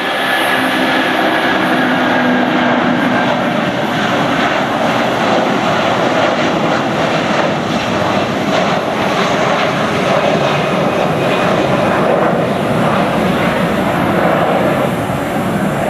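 Airbus A330-300's twin Rolls-Royce Trent 700 turbofans at takeoff thrust, a loud steady jet noise as the airliner climbs out just after lift-off, with a faint steady whine in the first few seconds.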